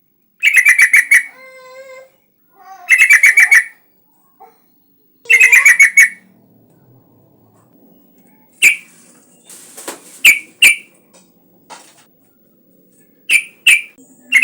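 Yellow-vented bulbul (trucukan) singing: three loud, quick runs of bubbling notes in the first six seconds, then a string of short, sharp single calls.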